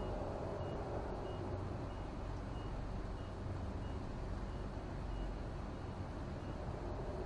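A steady, unexplained low droning hum heard at night, with a faint short high beep repeating about every two-thirds of a second.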